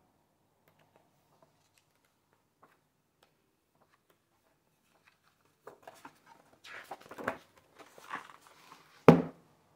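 Paper pages of a hardcover graphic novel being turned by hand. It is nearly silent at first; from about halfway come papery rustles and flaps, ending in one sharp, louder slap as a page comes down near the end.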